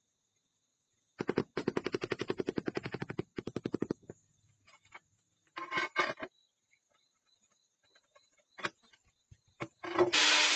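A fast run of sharp taps, about ten a second for nearly three seconds, on a ceramic floor tile being bedded into mortar, followed by a few single knocks. Near the end a DeWalt angle grinder starts up and runs steadily, cutting into a ceramic tile.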